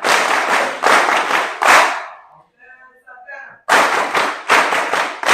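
A crowd applauding in two loud stretches of clapping, with a short lull about two seconds in where a voice is faintly heard.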